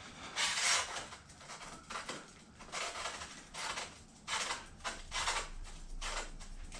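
A small brush scrubbing grease around the top of a bicycle frame's seat tube: a string of about eight short, scratchy rubbing strokes, uneven in spacing.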